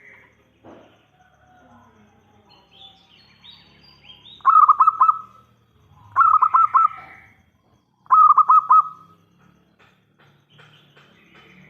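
Zebra dove (perkutut) cooing: three loud phrases of quick stuttering notes, about two seconds apart. Faint chirps of other small birds sound between and after them.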